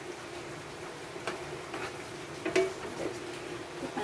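Metal ladle clicking and scraping against a stone-coated pan while stirring a thick sauce: a handful of light knocks, the loudest about two and a half seconds in, over a faint steady hum.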